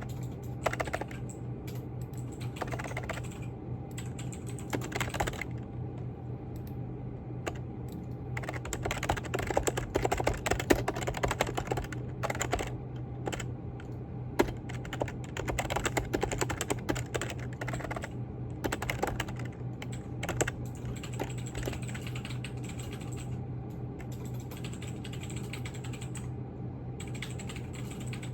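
Typing on a computer keyboard: fast, irregular runs of key clicks, busiest around the middle, over a steady low hum.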